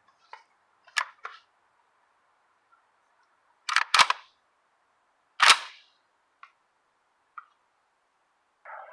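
Gunshots fired in short succession: one about a second in, a quick pair just before four seconds, another about a second and a half later, with a few fainter clicks between.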